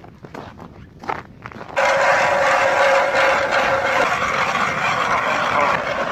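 Hand-cranked ice auger cutting into thin lake ice: a steady scraping, crunching grind that starts suddenly about two seconds in, after a few light knocks.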